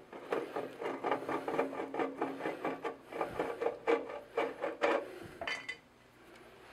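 A Phillips screwdriver backing out the sheet-metal screws of an electric water heater's upper access panel: rapid scraping and clicking, with a short squeak about five and a half seconds in.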